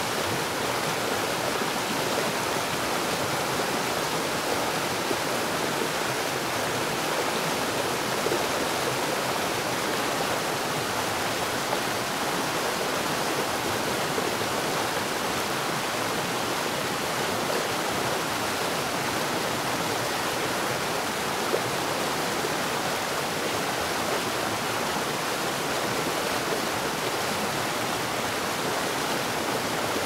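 A large waterfall: several wide torrents of water falling down a rock cliff, giving a steady, even rush of water noise with little deep rumble.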